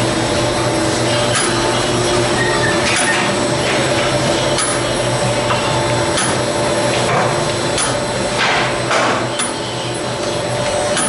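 Steady machine hum with irregular sharp knocks and clatter, about one every second or so, like work going on in a busy commercial bakery.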